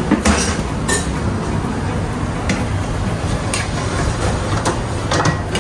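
A spatula knocking and scraping in a metal frying pan of noodles, a few separate clicks and clinks over a steady low rumble.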